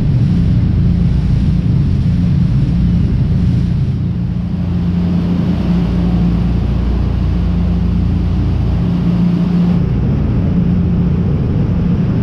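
A high-speed water taxi's engines running steadily at cruising speed: a loud, constant low drone with a steady hum, over the rush of the churning wake.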